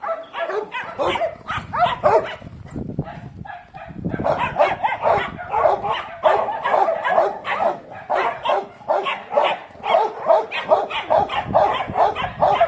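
A group of dogs barking, the barks overlapping almost without pause and busier from about four seconds in.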